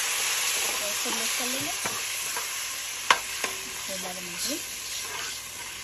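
Sugar syrup sizzling as it hits toasted vermicelli in a hot metal pot, the hiss slowly dying down. A metal spoon stirs and clinks against the pot, with the sharpest clink about three seconds in.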